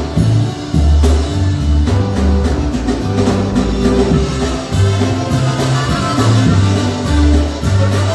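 Live polka band playing, with a deep bass line under drums and other instruments.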